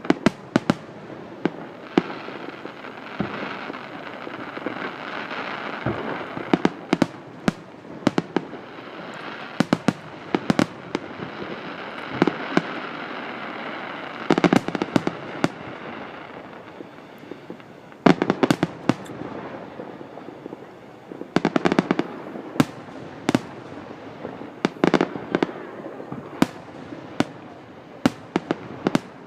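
Aerial fireworks going off: many sharp bangs at irregular intervals over a continuous hiss, with several thicker volleys of bursts.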